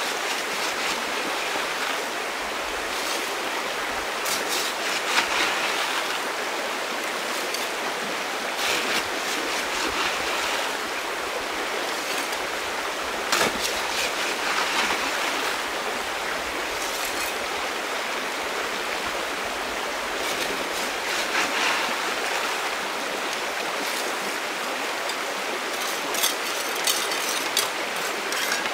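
River water rushing steadily, with scattered sharp clicks and knocks over it and several in quick succession near the end.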